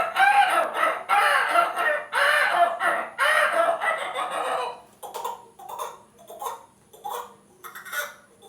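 A person imitating chickens with their voice. There are about five seconds of loud, drawn-out calls in four phrases, then shorter, quieter clucking calls about twice a second.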